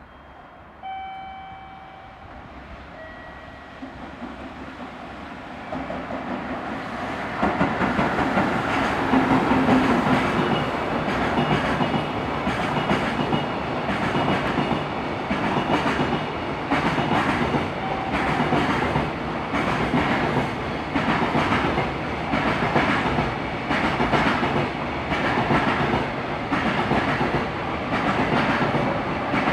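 Train on the Tokaido Main Line approaching, growing louder over the first several seconds. It then runs past close by with a steady clatter of wheels clacking over rail joints.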